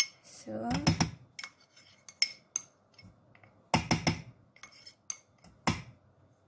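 Metal spoon clinking and scraping against a stainless steel pot while stirring a thick batter of butter, sugar and syrup, with a cluster of louder knocks about four seconds in and another near the end.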